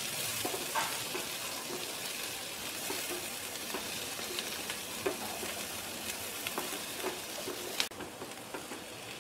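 Chopped onions sizzling in olive oil in a pan over a very low flame, stirred with a wooden spatula that scrapes and taps against the pan now and then. One sharper click comes near the end.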